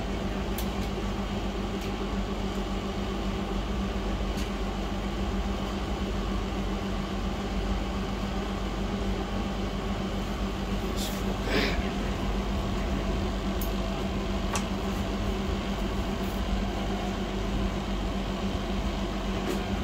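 Steady fan-like hum with a constant low droning tone, and a few faint clicks and taps from small parts being handled on the bench.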